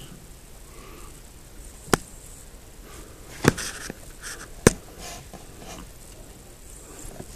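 Camera handling noise against plastic ant containers: three sharp clicks about a second or so apart, with soft rustling and scraping between the last two.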